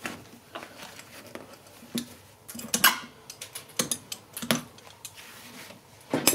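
Pincers pulling old upholstery tacks out of a wooden chair frame as the old cover is stripped off: a series of sharp metallic clicks and snaps, about one a second, with a louder, longer tearing burst near the end.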